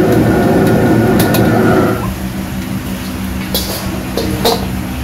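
A gas wok burner roaring under a steaming wok, dropping away about two seconds in to leave a steady low hum. A few sharp metal clinks of the ladle against the wok follow.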